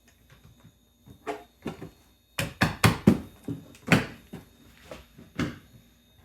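Hard sections of a modular RC crawler course knocking and clacking together as they are fitted and clipped into one piece: about a dozen sharp knocks, with a quick cluster of loud ones a little over two seconds in and another loud one about a second later.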